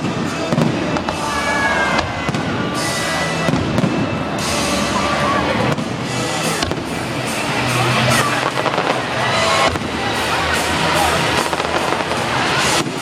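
Fireworks display going off: a dense, unbroken run of bangs and crackling bursts.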